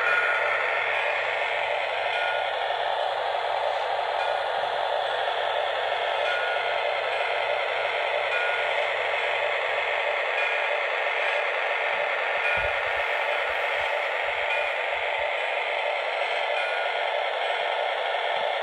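Lionel S-2 steam turbine model locomotive with a Proto-Sound 2 upgrade running, giving a steady rushing hiss of turbine sound.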